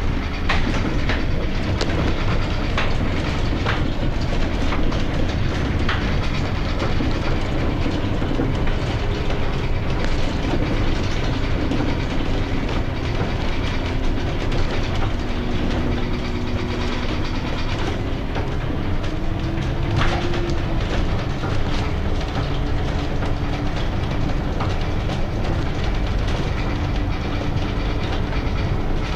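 Ride noise inside a city bus in motion: a steady engine and road rumble with a low hum that slowly shifts in pitch as the bus changes speed, and occasional clicks and rattles from the cabin.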